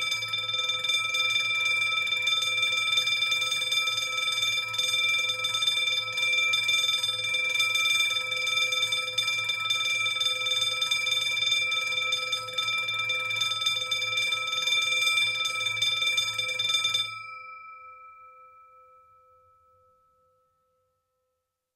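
Burglar alarm ringing continuously at a steady pitch. It stops suddenly about seventeen seconds in, and its ring fades out over the next three seconds.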